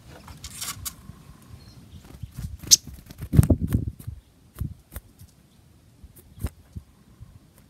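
Scattered sharp clicks and taps, with a cluster of soft low thumps a little past the middle and a brief faint tone about a second in.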